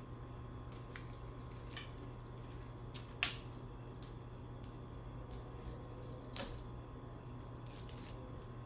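A few short, light clicks and taps of small objects being handled, the loudest about three seconds in and another near six and a half seconds, over a steady low hum.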